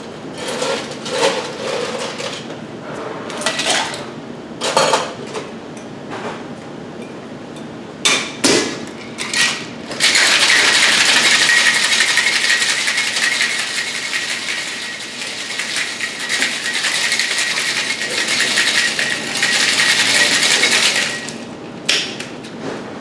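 Clinks and knocks of ice and metal shaker tins being handled, with a few sharp knocks about eight seconds in, then ice rattling hard inside a metal Boston shaker being shaken for about eleven seconds. A couple of clinks near the end as the tins are pulled apart.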